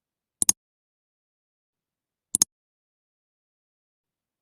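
Two sharp double clicks, each a pair of quick strikes, about two seconds apart, with dead silence between them.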